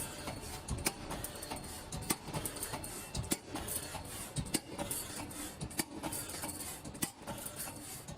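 Desktop CNC hydraulic pipe punching machine running automatically, feeding a steel tube and punching holes in it: repeated sharp knocks at irregular intervals over a steady mechanical noise.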